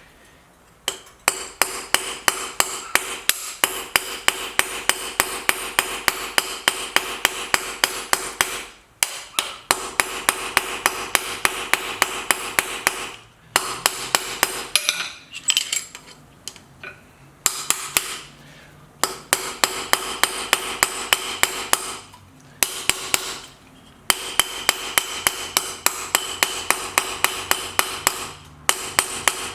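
Small cross-peen hammer tapping on steel in runs of quick, even blows, about three a second, each with a metallic ring, broken by short pauses: peening over the ends of 3/16-inch cold-rolled round pins to set them in forged hinges.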